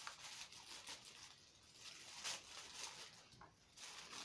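Plastic mailer bag being cut with scissors and pulled open, crinkling and rustling in short bursts, with a louder rustle about two seconds in.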